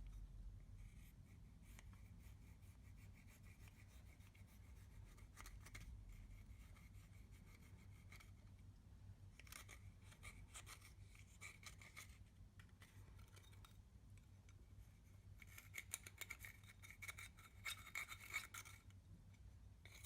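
Faint scratching and rubbing of makeup being broken up and worked into clear slime. It comes in clusters of quick scrapes, busiest about ten seconds in and again from about fifteen to nineteen seconds.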